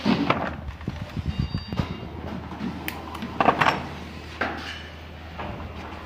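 Handling noise: irregular knocks, clicks and rustling from hands working on an electric scooter's rear wheel and disc brake, with the phone rubbing against clothing. The loudest cluster of knocks comes about three and a half seconds in.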